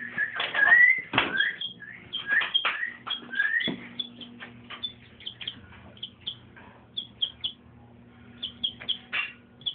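A chick peeping: a run of short, high cheeps, louder with a few sliding calls and some sharp knocks in the first few seconds, then softer and quicker. A faint steady hum lies underneath.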